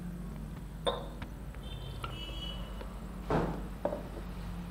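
Drinking glasses clinking and being set down on a wooden table: a few short clinks and knocks with a brief glassy ring, the loudest knock about three seconds in.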